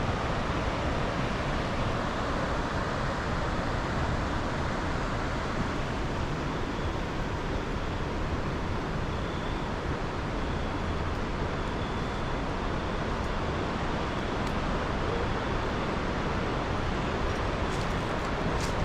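Steady rush of flowing water, an even noise with no change in level, with a few faint sharp ticks near the end.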